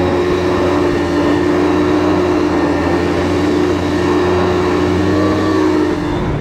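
Snowmobile engine running at a steady pitch while under way.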